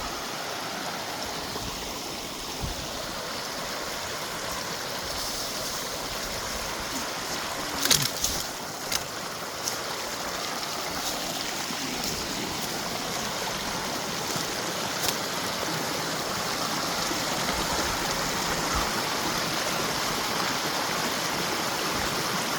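Mountain creek running steadily, growing a little louder toward the end. A short cluster of sharp cracks about 8 seconds in, with a few single clicks after.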